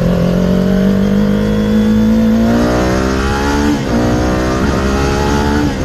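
Kawasaki Ninja 400's parallel-twin engine accelerating. Its pitch climbs steadily and drops sharply twice, about two-thirds of the way in and near the end, as the rider shifts up a gear.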